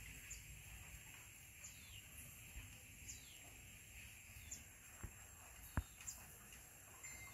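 Faint outdoor ambience in which a bird repeats a short, high call that slides downward, about five times, roughly every second and a half, over a thin steady high tone. Two sharp clicks about five and six seconds in, the second the loudest sound.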